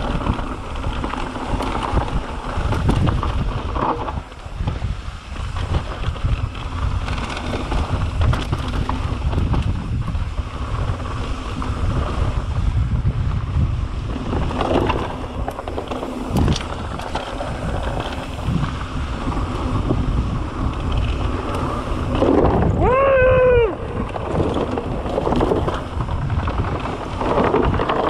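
Wind buffeting an action camera's microphone over the rumble and rattle of mountain bike tyres rolling fast down a dirt trail and over wooden plank features. About 23 seconds in, a short pitched tone rises and falls.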